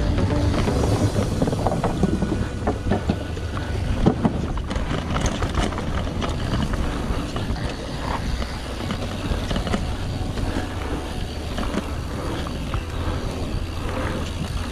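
Mountain bike riding fast down a dry, dusty dirt flow trail: tyres rolling on the hardpack, a steady low rumble of wind on the action camera's microphone, and frequent clicks and rattles from the bike over bumps, with a sharper knock about four seconds in.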